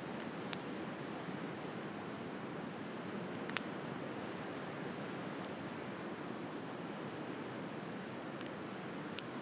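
Wood bonfire crackling, with a few sharp pops scattered over a steady wash of sea waves.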